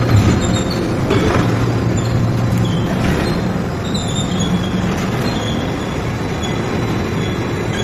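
Steady industrial machinery noise in a forging shop: a low hum under a dense rumble, with a few faint knocks and short high metallic squeals.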